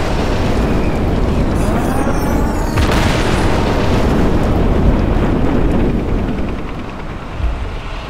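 Sound-effect mix of battlefield explosions: a dense, continuous rumble of blasts with a fresh surge about three seconds in, easing off near the end.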